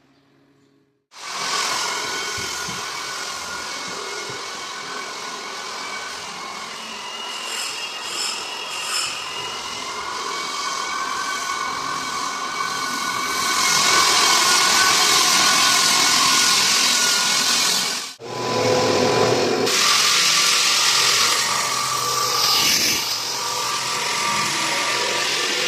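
Power tool working on wood, running steadily with a whining motor. It starts abruptly about a second in and cuts out for an instant near the middle before running on.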